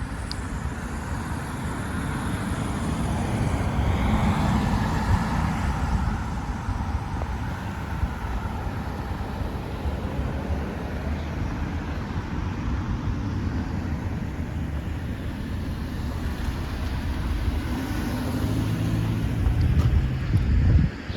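Road traffic: cars driving past, the noise swelling as one passes about four seconds in and again near the end.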